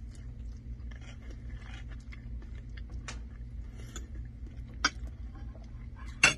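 Metal fork scraping and clinking on a ceramic plate while twirling spaghetti, with two sharper clinks, one near the end.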